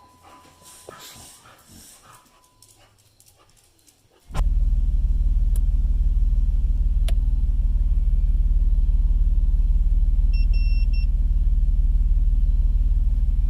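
Faint sounds, then about four seconds in the 3.8-litre V6 engine of a 2008 Jeep Wrangler comes in suddenly, running at a loud, steady idle. A brief high beeping sounds about ten seconds in.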